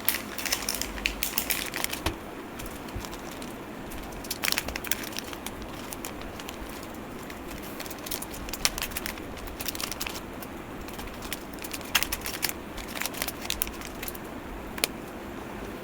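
Plastic packaging crinkling and clicking in scattered handfuls as small brushless whoop motors are unpacked from their bags and boxes, over a steady background hiss.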